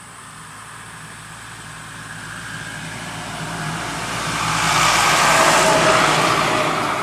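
A motor vehicle approaching and passing by, growing steadily louder to its loudest about five to six seconds in, then starting to fade.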